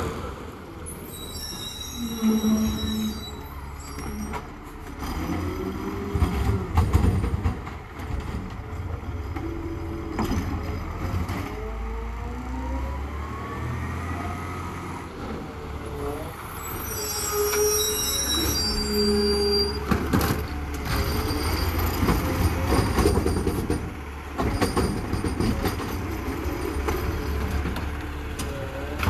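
Garbage truck running, its engine rumbling and rising and falling in pitch, with high-pitched squeals twice: once a second or two in, and again about two-thirds of the way through. A few short knocks.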